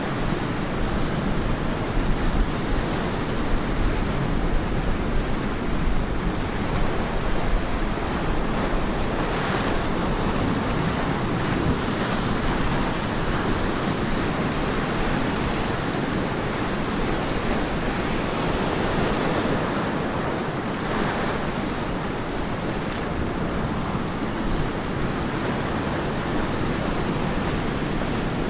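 Ocean waves breaking on a beach, a continuous wash of surf with gentle swells as waves roll in, and some wind on the microphone.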